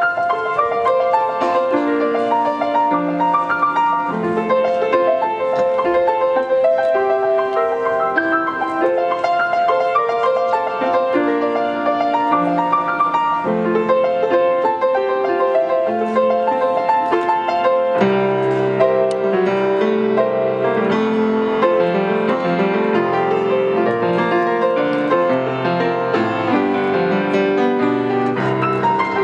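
Solo grand piano playing a flowing hymn arrangement, with melody and chords. About two-thirds of the way through, the bass fills out with lower, fuller chords.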